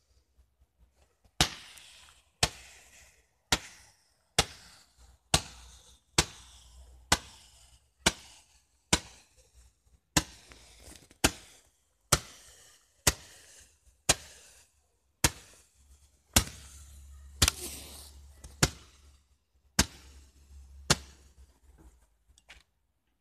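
A consumer firework firing a long series of sharp bangs, about one a second, each followed by a short echo. About twenty shots, then it stops near the end.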